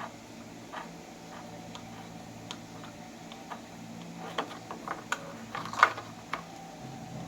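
Irregular small clicks and taps of door knob hardware being handled and fitted, the loudest about six seconds in, over a steady low hum.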